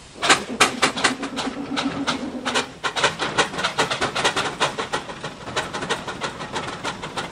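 Several steam traction engines working under load together. Their chimney exhaust beats start suddenly and chuff quickly and out of step with one another. A low steady tone sounds beneath them for the first two seconds or so.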